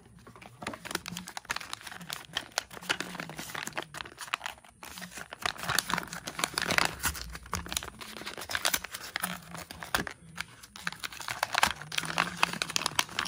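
Hands crinkling and tearing at a white paper packing wrapper from a toy box: a continuous run of irregular crackling rustles, with short lulls about five and ten seconds in.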